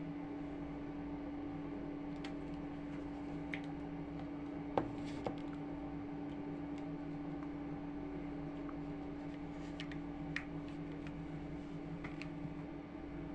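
Steady low electrical hum over a faint noise floor, with a few faint clicks about five and ten seconds in; no ringtone plays.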